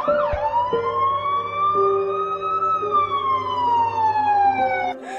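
A single long wailing tone that rises slowly for about two and a half seconds, then slides back down and stops shortly before the end, over held background music notes.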